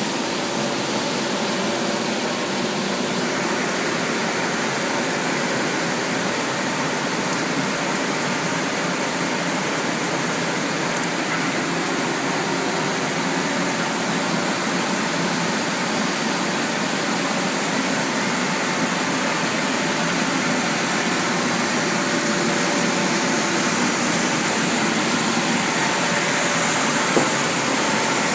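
Flexographic printing press for plastic film running: a steady, even machine noise with a few faint steady hums in it, and a single brief click near the end.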